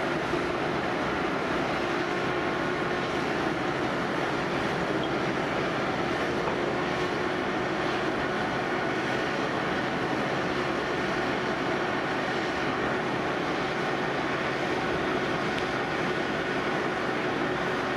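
Fire engines running steadily to pump water up an aerial ladder: an even mechanical drone with a faint constant hum and no change in pitch.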